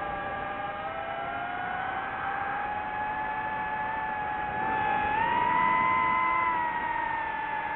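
DJI FPV drone's motors and propellers whining, the pitch gliding with the throttle and rising and getting louder about five seconds in, then easing back.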